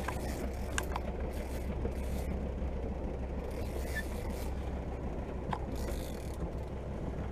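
Big-game lever-drag fishing reel ratcheting with a fast, even clicking while it is under load from a hooked bluefin tuna, with a few sharper clicks and a low steady hum underneath.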